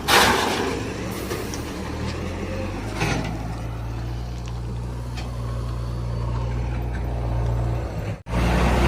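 Heavy diesel machinery engine running steadily, with a loud hiss right at the start and a shorter one about three seconds in. The sound breaks off for an instant near the end.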